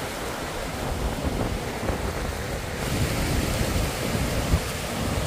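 Waterfall and fast-flowing stream rushing steadily, with gusts of wind buffeting the microphone.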